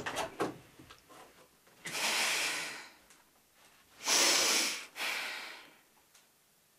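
A woman blowing out three heavy, breathy sighs through her mouth, each about a second long; the middle one is the loudest.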